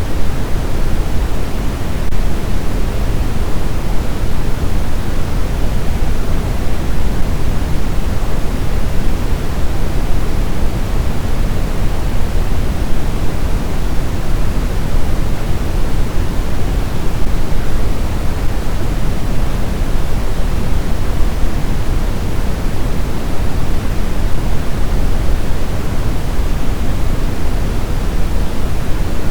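Steady, unchanging noise played for sleep, weighted toward the low end like pink noise: an even, deep hiss with no breaks.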